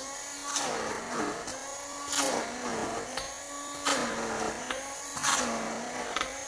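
A small electric motor running under changing load, its pitch dipping and recovering about every second and a half, with short scraping hits in between.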